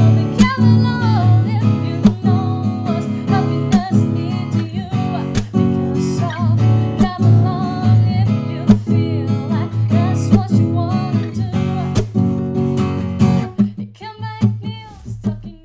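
Acoustic guitar music over a steady beat, fading out near the end.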